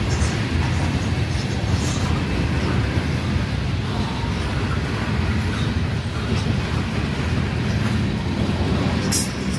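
Freight grain train rolling slowly past, a steady low rumble of the cars with a few faint wheel clicks, and a brief high hiss about nine seconds in.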